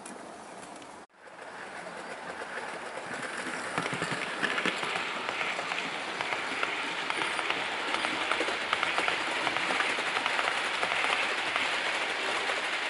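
Model train of LNER teak coaches and a dynamometer car, hauled by a W1 'Hush Hush' locomotive model, running along the layout track: a rapid, dense clicking of wheels on rail. The sound cuts out briefly about a second in, then builds up over the next few seconds.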